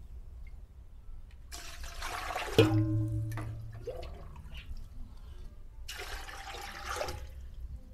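Water poured into a pot of beef in two pours, each about two seconds long. There is a sharp knock with a short low ring partway through the first pour.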